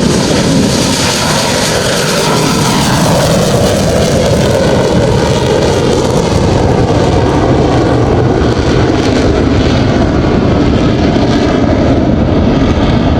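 Aircraft flying low overhead: loud, steady engine noise with no distinct pitch, a little brighter in the first few seconds.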